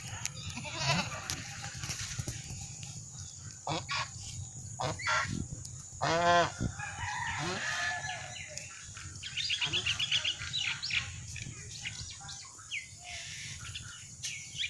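Domestic geese calling: one loud, drawn-out honk about six seconds in, with shorter calls before it and a quick run of high-pitched calls around ten seconds.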